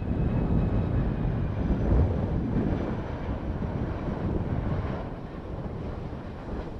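Boeing 757-300 jet airliner on final approach, its engines making a low rumble as it passes. Wind gusts buffet the microphone on top of it. The sound is loudest in the first two seconds and eases slightly toward the end.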